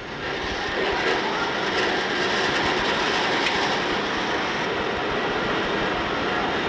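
Router bit cutting the recess for the face insert in a wooden golf club head: a steady machining noise that builds over the first second, then holds level.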